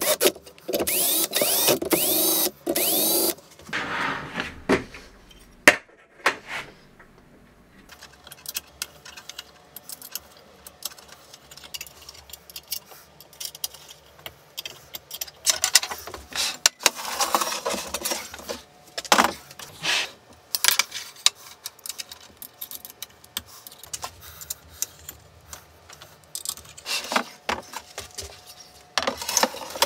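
Cordless drill driving a machine screw through a 3D-printed plate into aluminium C-beam, its motor running for about three seconds with a shorter second burst just after. Then scattered clicks and knocks of aluminium extrusion and small metal tools being handled.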